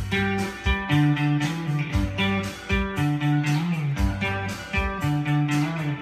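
Acoustic guitar strummed in a steady rhythm, bass notes shifting beneath the chords: the instrumental intro before the singing comes in.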